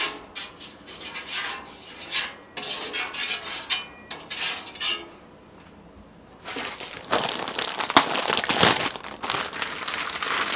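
Metal spatula scraping and clinking on a Blackstone flat-top griddle. About six and a half seconds in, a sudden sizzle with sharp pops starts and continues: frozen broccoli frying in oil on the hot griddle.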